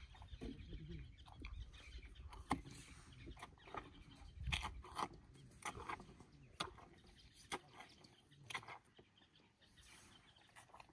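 African elephant drinking from a bucket: irregular short wet slurps and splashes as it draws water up its trunk and squirts it into its mouth. The sounds thin out near the end.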